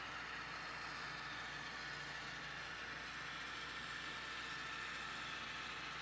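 HO scale model diesel locomotives running, with a steady faint engine drone from their sound decoders and the rolling of the train on the track.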